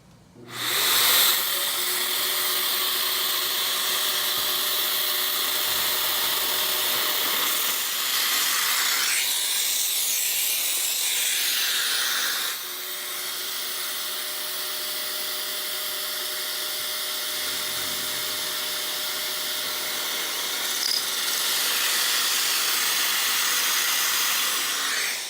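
Electric drill boring two holes through a drilling jig for Domino connector fittings. It spins up about half a second in and runs steadily with a hissing whir, its sound shifts once near the middle, and it stops just before the end.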